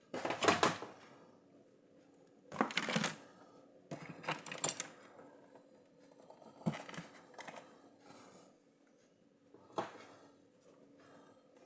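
Hard plastic and metal parts clicking and clattering in several short bursts as a stand is handled and fitted onto an all-in-one PC.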